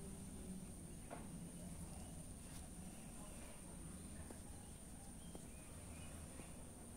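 Quiet outdoor ambience: a steady, high-pitched insect drone over a low rumble, with a few faint ticks.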